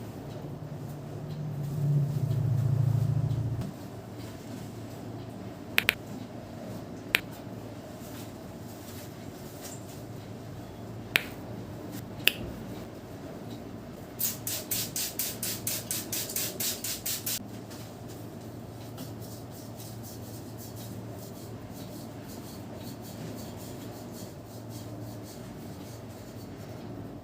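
Sharp snaps and cracks from a barber's hands during a head massage: a few single cracks, then a quick run of about twenty, some six a second, lasting about three seconds. A steady low hum runs underneath and swells louder for a couple of seconds near the start.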